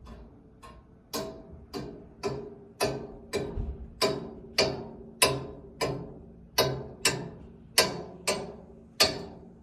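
Rhythmic banging on something that rings: a little over two strikes a second, each a sharp hit followed by a short pitched clang. The strikes are faint at first and louder from about a second in.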